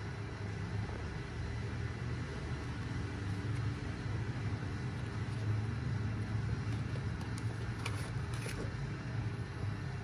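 Steady low background rumble, with a couple of faint light clicks about eight seconds in.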